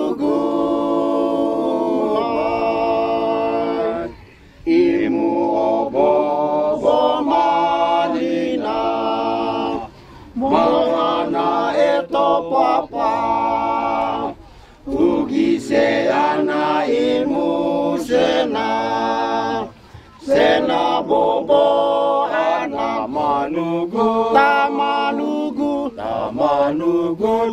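A group of men singing unaccompanied, in phrases of four to five seconds with short breaks for breath between them.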